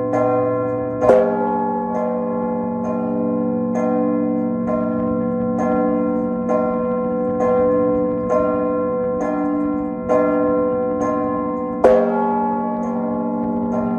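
Maltese-style church bell peal on stationary bronze bells, their clappers pulled by hand ropes: smaller bells struck in a steady pattern about once a second. The large bell is struck twice, about a second in and near the end, each stroke louder and leaving a deep hum that rings on under the others.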